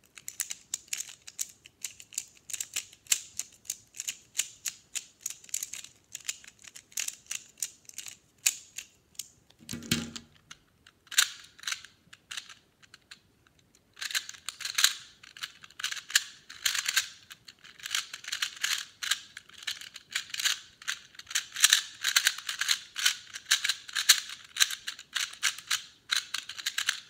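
Rapid plastic clicking and clacking of speed-puzzle layers being turned by hand: first a pyramid-shaped twisty puzzle, then a 2x2 cube. About ten seconds in the clicking pauses with a single dull thud, then comes back faster and denser.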